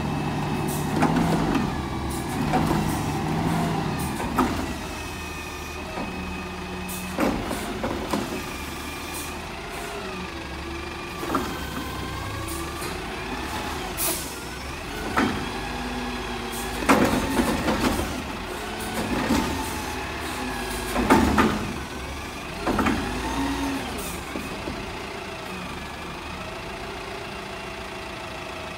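Mack front-loader garbage truck with a Curotto-Can working: the diesel runs steadily while the hydraulics whine, rising and falling in pitch as the arm and can move. Repeated clanks and bangs come as carts of yard waste and brush are dumped.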